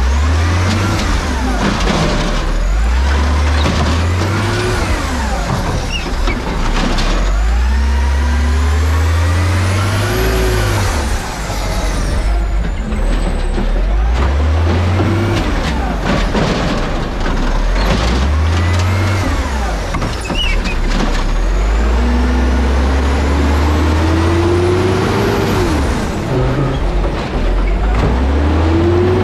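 Autocar automated side-loader garbage truck working its route: the diesel engine revs up and falls back again and again as the hydraulic arm grabs, lifts and tips carts, with rising and falling hydraulic whine over it and air-brake hisses between stops.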